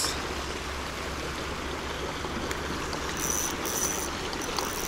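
Fast-flowing river rushing steadily, with a faint high whine that comes and goes twice in the second half.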